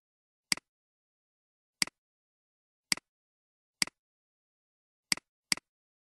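Six computer mouse clicks at irregular intervals, each a short sharp click with a brief tail, the last two close together, as the cursor selects options and fields in a web form.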